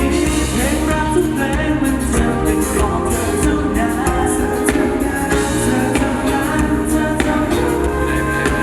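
Thai pop song playing loud over a concert PA, with singing over a steady bass line and drums.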